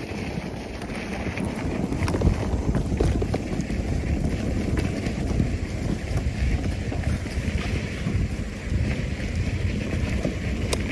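Wind rumbling on the microphone of a mountain bike being ridden along a dirt trail, with scattered light clicks and rattles.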